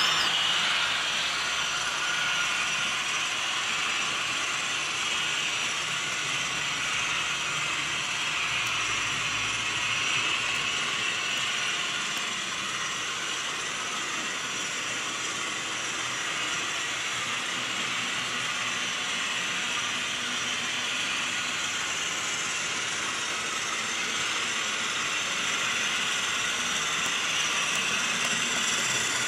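Model trains running on a model railway layout: a steady mechanical whirr of small electric motors and gearing, with wheels running on the track.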